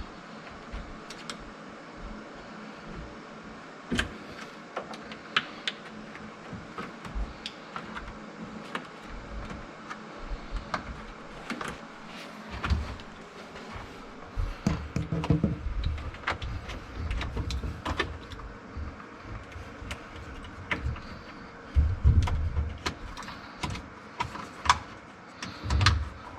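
Utility knife trimming the edges of a Cabinet Saver liner under a sink, with irregular clicks, scrapes and knocks as the mat is cut and handled. There are heavier low bumps about halfway through and again a few seconds before the end.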